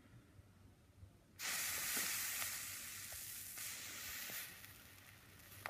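Water added to hot, freshly dehydrated copper sulphate sizzles and hisses as the solid takes the water back up, with a few small crackles. The sizzle starts suddenly about a second in and fades over a few seconds. A short click comes right at the end.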